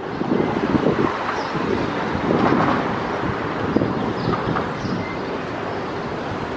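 Gusty wind buffeting the microphone, over a steady rush of outdoor airport noise.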